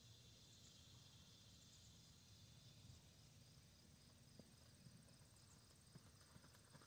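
Near silence, with faint, steady trilling of insects such as crickets.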